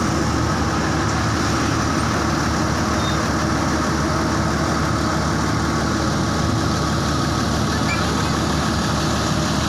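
Vehicle engine running steadily under a constant roadside traffic noise, with no sudden changes.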